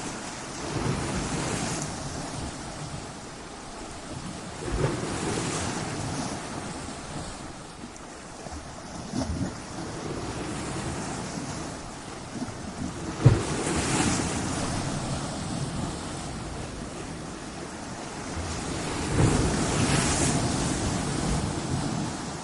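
Sea waves breaking against stone walls, the surf swelling and falling back every few seconds, with wind on the microphone. Several sharp low thumps come through, the loudest about halfway through.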